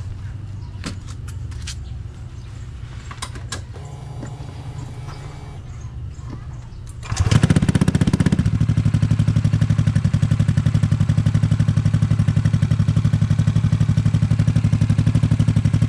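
Honda Click 160 single-cylinder scooter engine through an Akrapovic slip-on exhaust whose silencer insert is cut down to a short stub: running quietly with a few clicks, then about seven seconds in it gets suddenly much louder with a brief rise before settling into a steady, even idle. The cut insert leaves a full but not brash exhaust note.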